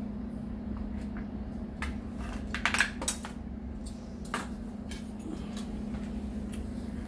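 Clicks and clinks of hard plastic washer parts and a metal screwdriver being handled, with a quick cluster of them a little under three seconds in, over a steady low hum.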